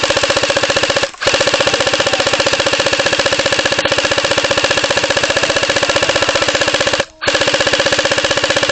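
Airsoft electric gun firing on full auto in long sustained bursts, a fast even stream of shots with two short pauses in the trigger, about a second in and about seven seconds in.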